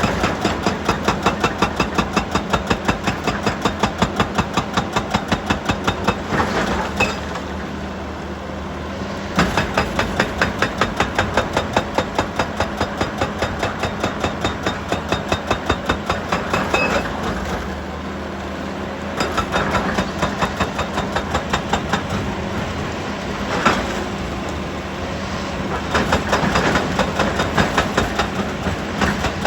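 Heavy machinery with an engine running steadily, and bursts of rapid, even knocking at about five blows a second that stop and start several times.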